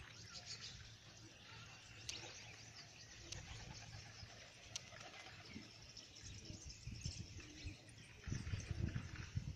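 Faint chirping and twittering of small birds, scattered short calls throughout. From about eight seconds in, low rumbling bursts rise over them.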